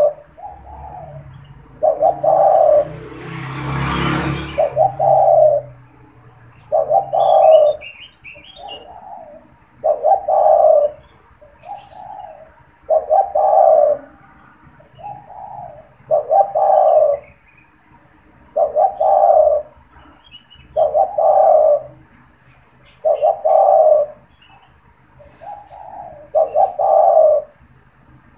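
A male spotted dove (tekukur) cooing over and over, a full coo phrase about every three seconds with softer notes between: the bird is in full calling form. A few faint high chirps come through, and a short rushing noise sounds about four seconds in.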